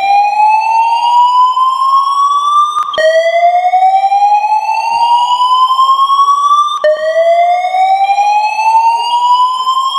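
Building fire-alarm voice-evacuation system sounding its slow-whoop evacuation tone: a loud rising whoop that climbs steadily for about four seconds, then drops back low and climbs again, with new whoops starting about 3 and 7 seconds in. It is the evacuation signal that alternates with the recorded order to leave the building.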